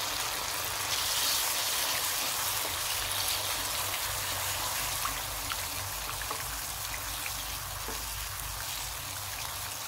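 Potato and tomato curry sizzling and bubbling in a pan just after a glass of hot water is poured in, while a slotted spatula stirs it. A steady hiss that swells about a second in and slowly eases off.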